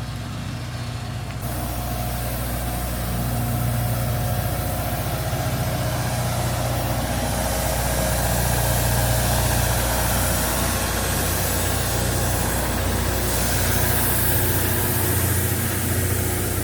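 An engine idling steadily, with a low hum under a broad hiss. It gets a little louder a few seconds in.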